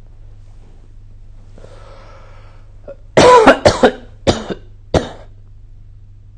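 A person coughing: a fit of four or five loud coughs in quick succession starting about three seconds in, the first one voiced and the longest.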